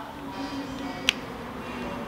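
Background music with sustained held notes, and a single sharp click about a second in.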